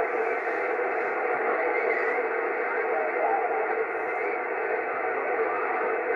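Steady hiss and static from an 11-metre-band radio receiver's speaker, cut off at the low and high ends like radio audio. Faint garbled voices of weak stations drift in and out under the noise.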